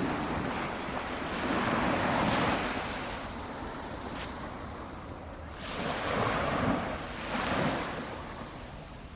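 Small, gentle waves from a flat calm ocean breaking and washing up the beach. The surf swells and fades every few seconds.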